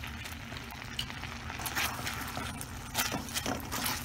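A utensil stirring thick gochujang sauce in a metal pan, making irregular scrapes and clicks against the pan, with a cluster of them about three seconds in. Under them is a steady low hum.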